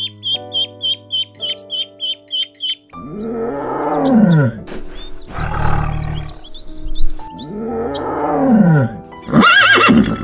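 Ducklings peeping rapidly for the first few seconds. Then a lion's two long roaring calls a few seconds apart, and a horse's whinny near the end. Background music plays throughout.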